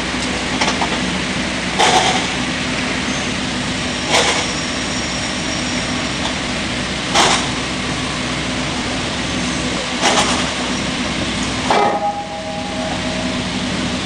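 Small log sawmill line running: a steady machine drone with a low hum from its motors and roller conveyors, broken by five sharp clanks of timber and steel, one every two to three seconds.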